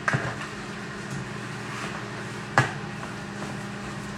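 A utensil knocking sharply against a plastic mixing bowl twice, just after the start and again about two and a half seconds in, while flour is mixed into a batter, over a steady low hum.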